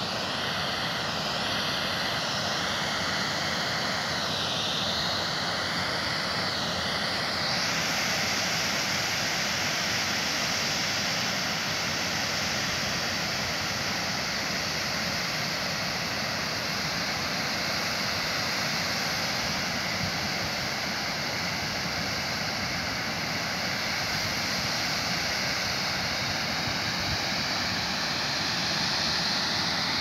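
Broad waterfall pouring over a rock ledge into a pool: a steady rush of falling water. A faint wavering whine sits over it for about the first eight seconds, then cuts off.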